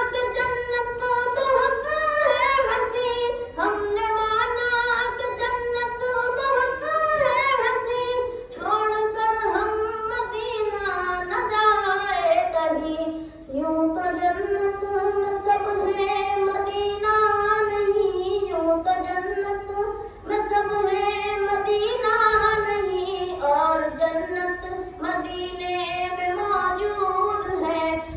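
A boy singing a naat unaccompanied: one solo voice in long, melodic phrases with held, wavering notes, pausing briefly for breath every few seconds.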